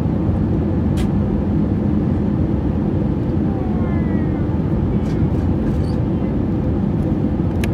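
Steady low rumble of a jet airliner's engines and rushing airflow heard inside the passenger cabin during descent on final approach, with a steady hum underneath. A sharp click about a second in and another near the end.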